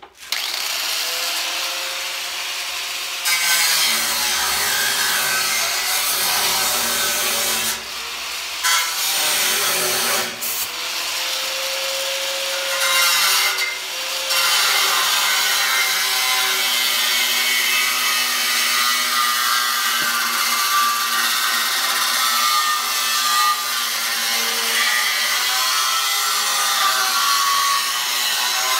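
Angle grinder cutting sheet steel: a loud, steady grinding that dips briefly three times in the first half as the wheel eases off the metal, then runs on evenly.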